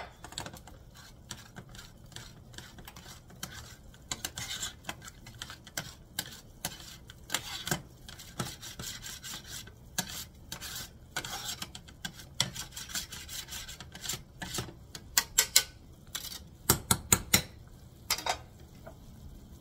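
Metal hopper of a nokedli (spaetzle) maker scraping and clicking back and forth over its perforated steel plate as dough is pressed through into boiling water. A few louder metal clanks come near the end.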